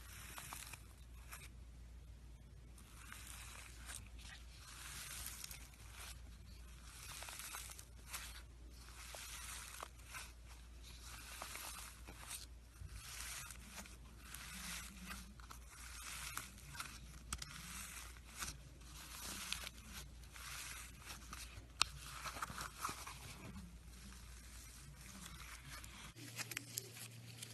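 Slime being handled by hand: a faint series of short crackling, rustling strokes, a few a second, with scattered sharp clicks.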